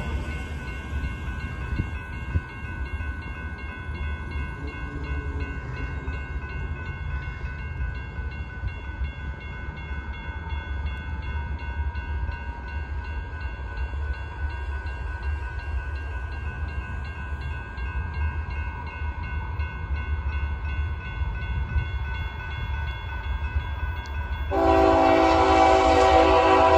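Low steady rumble with faint distant horn tones as the train approaches, then about 24 seconds in the GE ES44C4 locomotive's Nathan K5HL five-chime air horn starts loudly and keeps sounding.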